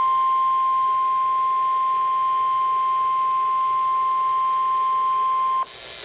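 Emergency alert attention tone: a single steady, loud tone of about 1050 Hz, the NOAA Weather Radio warning alarm tone that heralds a warning broadcast. It cuts off suddenly near the end, leaving faint radio hiss.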